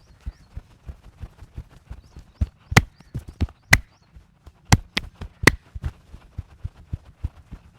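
Rapid, irregular percussive massage strikes on a person's head, neck or back, several a second. A few sharper, louder smacks fall around the middle.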